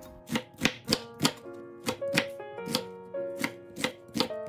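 Chef's knife chopping through an onion onto a wooden cutting board: about a dozen quick, sharp strikes, roughly three a second, over light background music.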